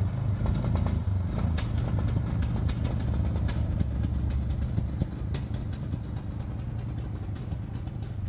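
1998 Polaris Big Boss 500 6x6 ATV engine running as the machine drives across gravel, with scattered sharp clicks of gravel under the tyres. It gets a little quieter as it pulls away.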